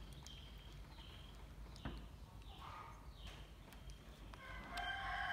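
Faint clicks and scrapes of a plastic spoon in a small plastic pudding cup while a baby monkey is spoon-fed, with one sharper click about two seconds in. Near the end a louder held voice-like sound with several steady pitches sets in.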